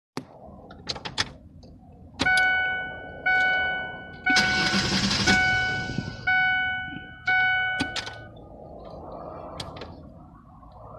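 Vehicle warning chime in a 2003 Ford Ranger dinging about once a second, six times, each ding fading away, after a few clicks at the start. A loud rushing noise about a second long comes in the middle of the dings.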